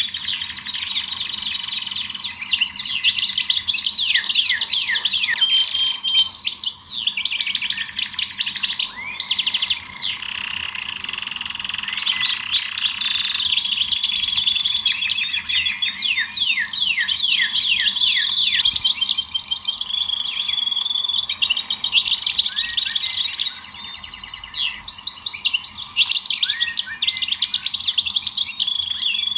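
Several small songbirds chirping and singing together without pause, a dense overlap of rapid trills and quick falling notes.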